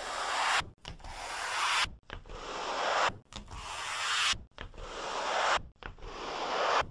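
Harsh rushing, scraping noise that comes in a repeating pattern of about six swells, each building louder over about a second and then cutting off suddenly.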